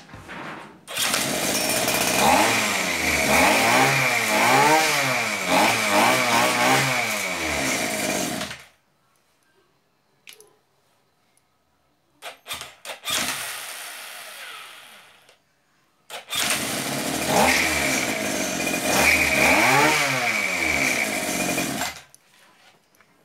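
Small two-stroke engine driving a homemade angle grinder, revved up and down again and again as the throttle is worked, with a steady high whine above it. It runs for about eight seconds and stops, gives a short burst with a few clicks, then runs and revs again for about six seconds before cutting off suddenly near the end.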